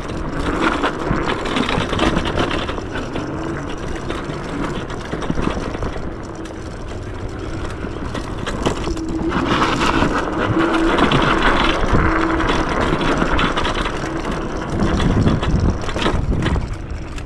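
Yume X11 electric scooter ridden along a dirt trail: tyre noise and rattling over the bumps, with a steady hum that comes and goes. It gets louder for a few seconds in the middle.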